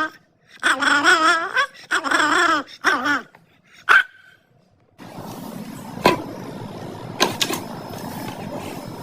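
A dog whining in two long, wavering cries, then one short yelp. About five seconds in, the sound switches to a steady noisy background with a few sharp knocks.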